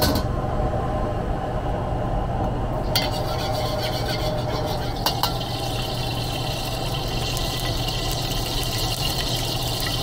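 A gas wok burner runs with a steady low rumble. A wok is set down on it with a knock at the start. About three seconds in, oil hits the hot wok and sizzles steadily from then on, with two light clicks around five seconds.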